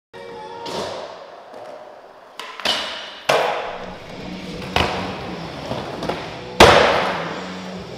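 Skateboard rolling on wooden ramps in a large indoor skatepark, with a series of sharp clacks and thuds of the board and wheels hitting the wood, the loudest about six and a half seconds in, each ringing out in the hall.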